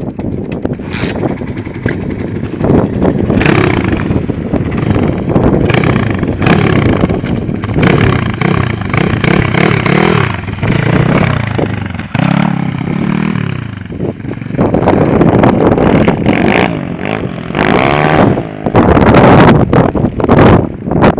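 Kayo 140cc pit bike's single-cylinder four-stroke engine being ridden around, its pitch climbing and dropping again and again as the throttle is opened and closed.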